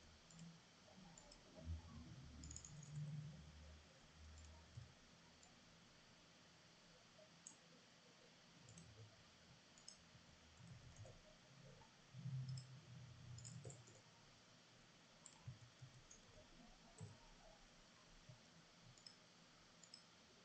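Faint, scattered computer mouse clicks over near silence, with a few soft low thumps.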